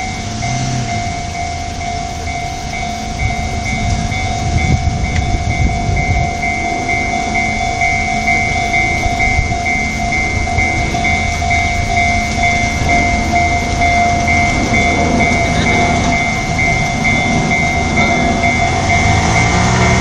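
Level-crossing warning bell ringing, an electronic ding repeating evenly. Under it the rumble of a Nishitetsu electric train grows louder as it approaches.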